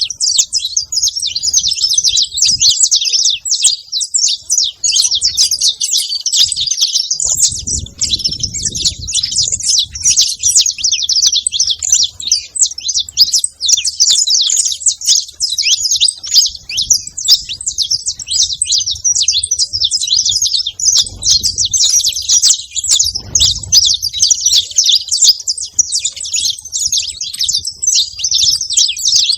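Saffron finches chirping and singing in a dense, unbroken stream of rapid high twitters. A low rumble sounds underneath about a quarter of the way in and again about three quarters of the way through.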